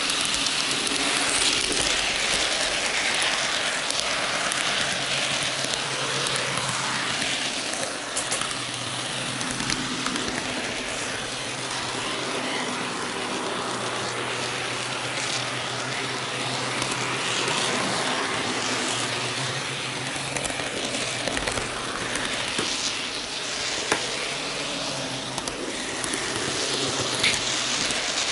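N gauge model train running along the track, heard from the camera car riding on it: a steady hiss of metal wheels on rail with a faint motor hum, and a couple of sharp clicks near the end.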